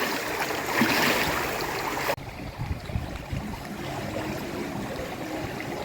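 Swimming-pool water splashing and lapping as someone swims. The hiss drops away suddenly about two seconds in.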